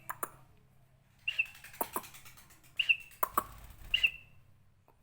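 Pet lovebird giving a short chirp about every second and a half, four in all, with a few sharp clicks between them.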